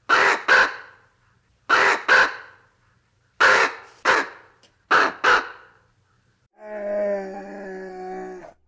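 Ravens giving harsh caws in pairs: four double caws, about one pair every one and a half seconds. Near the end comes a different, steady, drawn-out pitched call lasting about two seconds, from a sun bear.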